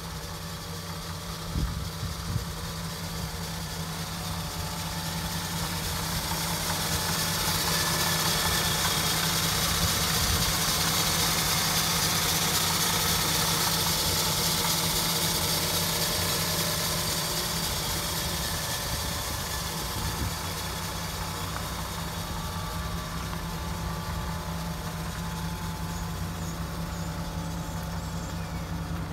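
1953 Dodge B4-4 pickup's flathead straight-six idling steadily, growing louder and hissier through the middle stretch, then easing back.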